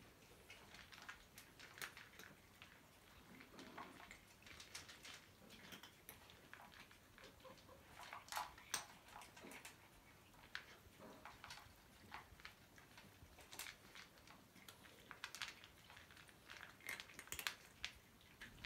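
Several cats eating dry kibble from bowls: faint, irregular crunching and clicking.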